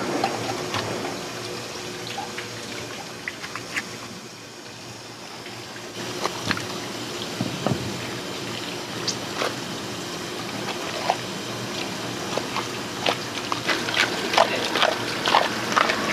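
Water running at a sink, with scattered knocks and scrapes of handling that come thicker near the end.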